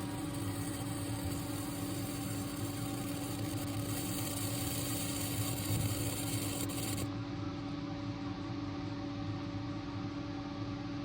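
Refrigerator's machinery running with a steady electrical hum and hiss, from a fridge the owner says is overheating and burning hot at the back. The high hiss drops away about seven seconds in while the hum goes on.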